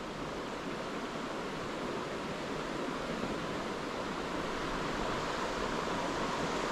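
Steady rushing of river water, an even noise with no distinct events that grows slightly louder.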